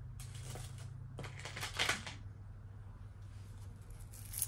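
Costume jewelry rustling and clinking as hands rummage through a heap of beaded necklaces and metal chains. There are two bursts in the first two seconds and a short sharper clink near the end.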